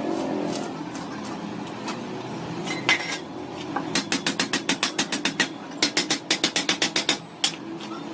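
Rapid hammer taps on metal: a single louder knock, then two quick runs of blows at about eight a second, over a steady low hum.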